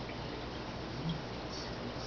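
Steady trickling water noise from the aquarium, over a low steady hum, with a soft bump about a second in.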